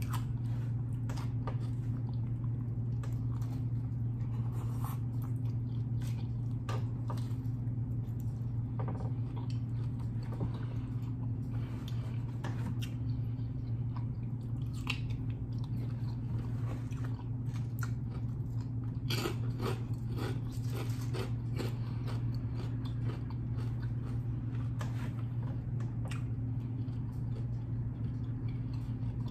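Close-miked eating: chewing with wet mouth sounds and short crunches of kettle chips and a dill pickle spear, a dense run of crunching about two-thirds of the way in. A steady low hum runs underneath.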